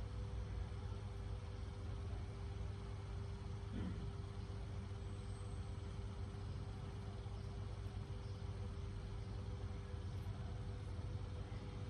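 Steady low mechanical hum with a couple of constant tones, like a motor or engine running nearby, with a brief faint rising glide about four seconds in.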